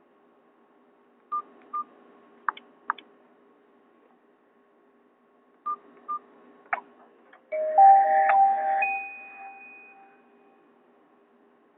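Nokia 216 mobile phone giving short beeps and clicks twice, then playing a brief ringtone from the Nokia N97 Mini set about seven seconds in. The ringtone is a bright tone of several notes lasting about a second and a half, then ringing away.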